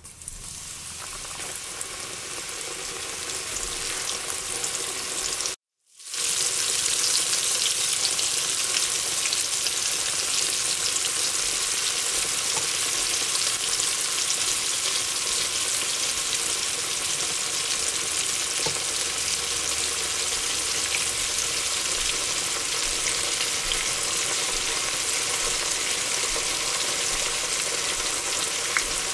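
Food deep-frying in a pan of hot cooking oil: a steady sizzle with fine crackles, growing louder over the first few seconds. It cuts out briefly about six seconds in, then resumes at full strength.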